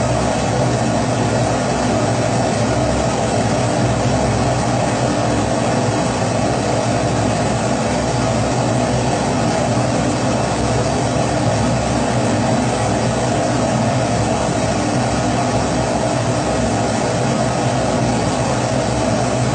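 Kerosene pressure stove (Primus-type) burning with a steady, unbroken roar from its burner flame.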